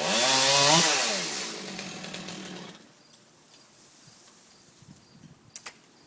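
Chainsaw revving up sharply once and winding back down, then falling quiet about three seconds in. Two short sharp clicks near the end.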